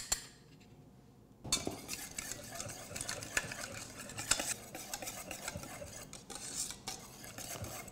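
Wire whisk beating a wet egg-yolk, herb and mustard condiment in a stainless-steel bowl: a fast, continuous run of metallic scraping and clicking that starts about a second and a half in.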